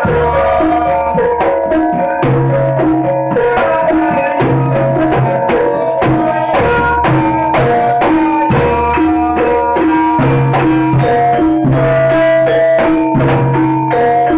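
Jaranan music from a Javanese gamelan-style ensemble: hand drums beaten in quick, steady strokes over sustained pitched metallic tones and a low repeating tone.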